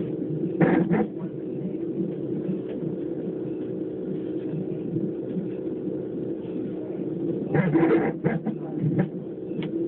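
Baby hiccuping: a few short, sudden hiccups about a second in and a quick cluster of them near the end, over a steady hum.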